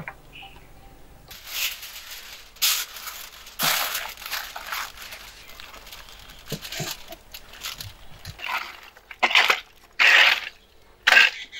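Aluminium foil crinkling in irregular bursts as it is pressed and crimped over a tray of roasted mutton. Near the end come a few louder, sharper rustling and scraping bursts.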